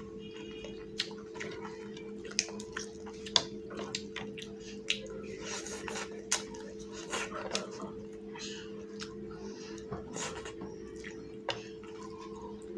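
Close-up eating sounds of a person eating fish curry and rice by hand: irregular wet clicks and smacks of chewing and lips, with a steady low hum underneath.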